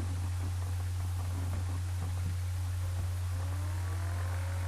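Steady low hum over faint hiss, with faint gliding tones coming in near the end.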